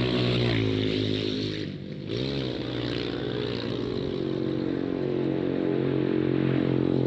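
Motorcycle engine running close by. Its pitch dips and climbs back about two seconds in, then holds steady.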